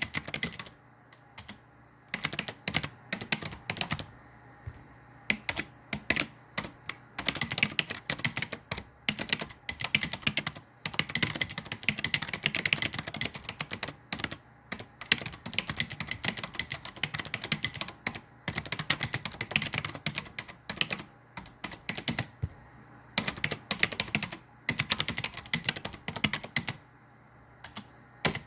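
Computer keyboard being typed on: fast runs of key clicks in bursts, broken by short pauses.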